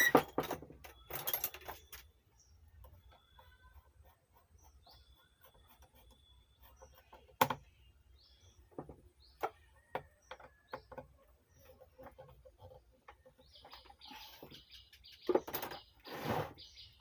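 Scattered clicks, taps and rustles of hands and tools working on an amplifier chassis during the fitting of a new rectifier. The loudest are a cluster of handling noises at the start, a sharp click about seven seconds in, and rustling near the end. Birds chirp faintly in between.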